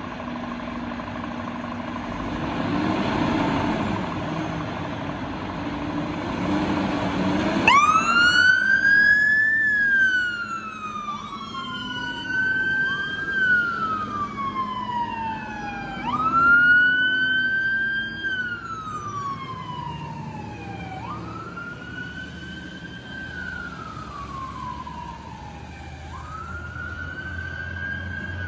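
Fire engines' diesel engines running as they pull out, then about eight seconds in a two-tone-free wail siren starts: slow rising and falling wails, with a second appliance's wail overlapping out of step.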